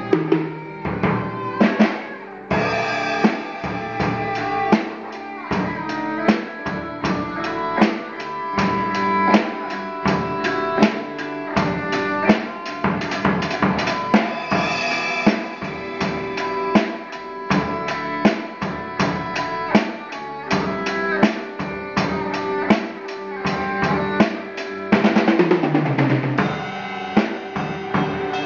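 Drum kit played in a steady rock beat, with kick drum, snare and cymbal strikes, over sustained pitched notes from other band instruments. The playing grows denser and louder near the end.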